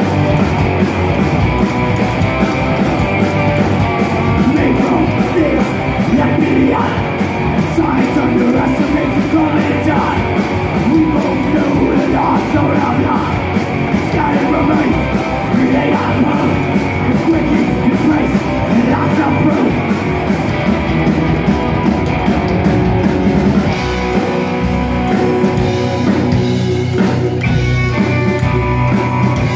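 Live rockabilly band playing amplified electric guitars, upright bass and drum kit, with a steady beat that thins out about two-thirds of the way through.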